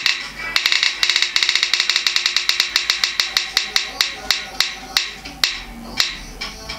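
Spin-the-wheel phone app ticking as its wheel spins: rapid clicks that slow steadily as the wheel winds down.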